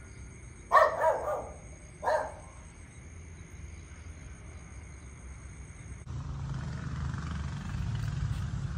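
A dog barks a few times in short bursts in the first two seconds or so, over a faint steady high hum. About six seconds in, a louder steady low rumble sets in.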